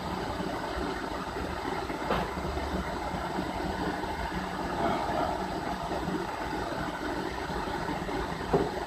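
Milling machine spindle running steadily while drilling a hole in a metal tapping block, with a low steady hum. A sharp click or knock comes about two seconds in and another near the end.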